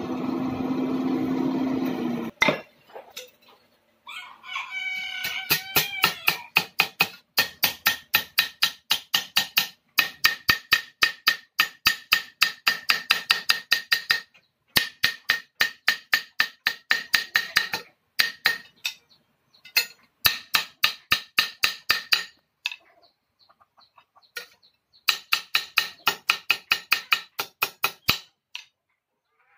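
Hand hammer forging a hot rubber-tapping knife blade on a steel plate: rapid ringing metal strikes, about three a second, in runs with short pauses. A steady low hum cuts off about two seconds in, and a rooster crows once as the hammering starts.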